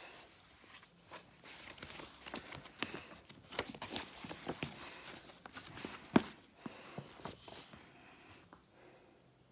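Faint rustling and soft clicks of things being handled and moved about, with one sharper click about six seconds in; it dies away near the end.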